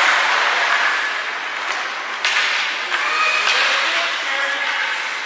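Hockey rink din of spectators' voices and shouts echoing in the arena, with one sharp crack about two seconds in.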